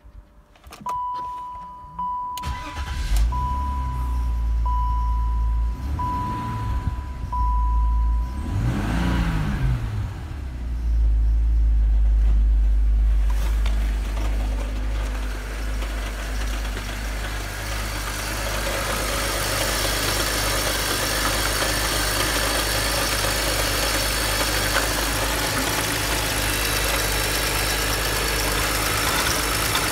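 BMW X5 E53's M54B30 3.0-litre straight-six being started, with the dashboard warning chime beeping about six times, briefly revved about nine seconds in, then idling steadily. Near the end it is heard close up in the open engine bay.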